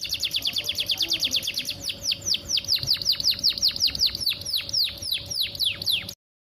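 Canary singing a rapid run of repeated falling notes, fast at first and slowing about two seconds in, then stopping abruptly near the end.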